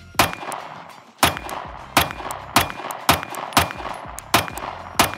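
Sig Sauer P365 Macro compensated 9mm pistol fired eight times in a steady string, about one shot every two-thirds of a second, each with a short echo.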